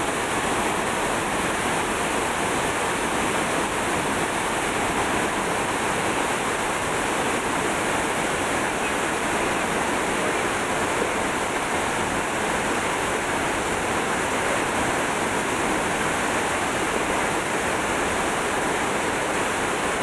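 La Fortuna Waterfall plunging into its pool: a steady, unbroken rush of falling water.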